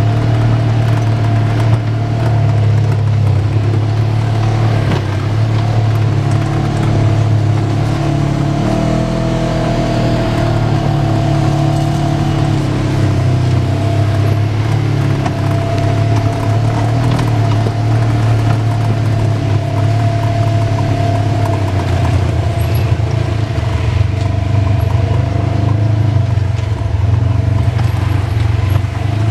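Side-by-side UTV engine running steadily while driving a rough dirt trail, heard from inside the vehicle, its pitch shifting slightly about nine seconds in and again later as the speed changes. Small knocks and rattles from the vehicle bouncing over the ground.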